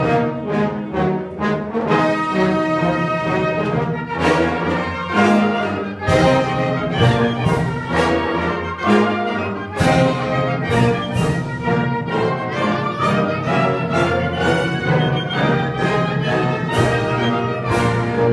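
Concert wind band playing, with clarinets, flutes and brass together in full chords and strongly accented attacks.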